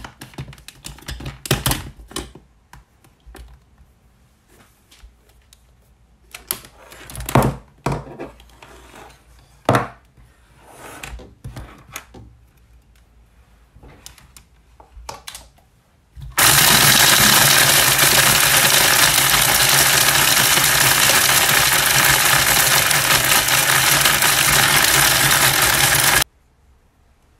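Knocks and clicks as the electric grinder is handled and plugged in, then the grinder motor runs loudly and steadily for about ten seconds, grinding dry cloves, almonds, sesame and harmal seeds, and cuts off suddenly.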